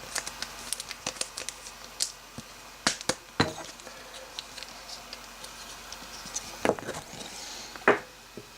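Trading cards being handled at a table: an irregular string of light clicks, taps and rustles, with a few sharper snaps.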